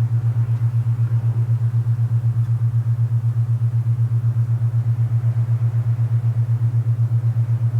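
Alpha binaural beat: a steady low hum whose loudness pulses evenly about eight to ten times a second. Behind it is a soft hiss of wind.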